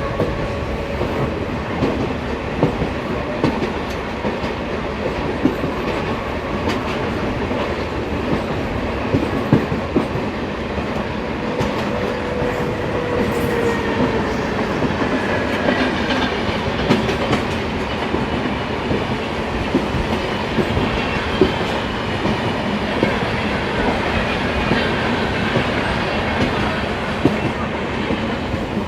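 Indian Railways passenger train running on the track, a steady rumble with wheels clacking over rail joints, and faint wheel squeals that glide in and out around the middle and again near the end.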